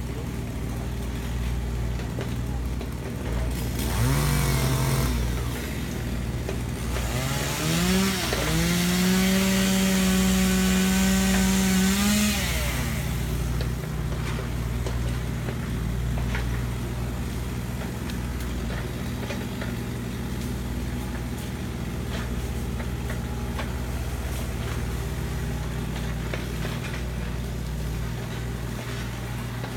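Chainsaw engine revving up briefly about four seconds in, then held at full throttle from about eight to twelve seconds in, as when cutting. Under it a steady low hum of another engine runs throughout.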